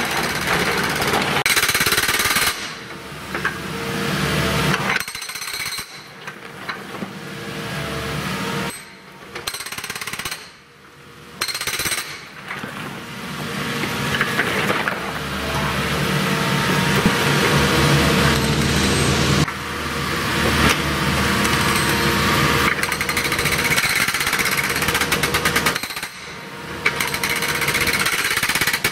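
Excavator-mounted hydraulic breaker hammering its chisel into asphalt and concrete pavement, breaking it up. The rapid hammering stops and starts several times, with the machine's engine running underneath.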